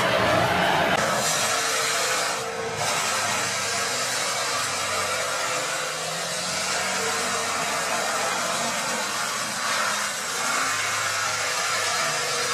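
Tractor-mounted forestry mulcher grinding into a tree stump: a steady rushing noise from the spinning rotor and flying wood chips, with the tractor's engine running under it. The noise dips briefly about two and a half seconds in.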